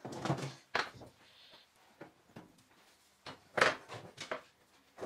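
Metal pan-support grates of a gas hob being lifted off and set down: a few separate clanks and knocks, the loudest about three and a half seconds in.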